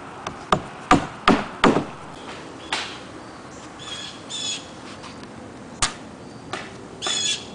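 Hammer blows on a felt-covered roof deck, the felt underlayment being nailed down: five sharp knocks in quick succession, then two more single knocks spaced out later. Short high chirps come in between, twice.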